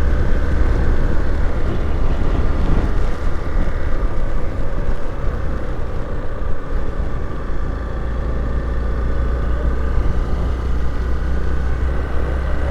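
Motorcycle riding at steady speed, its engine a faint even drone under heavy wind buffeting on the camera's microphone.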